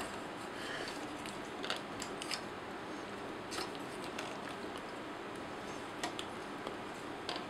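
Plastic transforming-robot action figure being handled and posed, giving a few faint, scattered clicks of its joints and parts over a steady background hiss.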